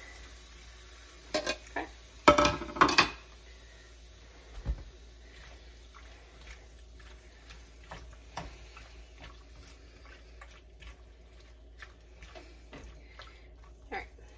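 Cookware and utensils clattering as diced chicken goes into a frying pan: a few sharp clinks and knocks, the loudest about two to three seconds in, another just before five seconds, then light scattered ticks.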